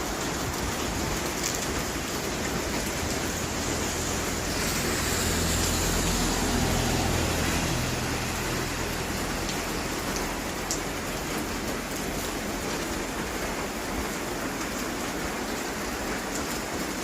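Steady rain falling, with scattered drops striking close by. A low rumble swells and fades about five to nine seconds in.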